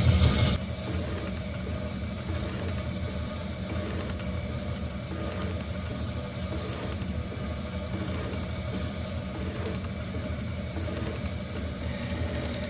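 Steady mechanical hum of a running motor or engine, louder for the first half second and then even.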